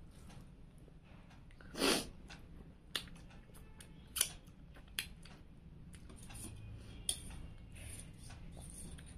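Eating with the fingers: rice being mixed on a steel plate, lip smacks and finger-licking clicks, and a louder slurp about two seconds in. A steel spoon clinks against the steel curry bowl about seven seconds in.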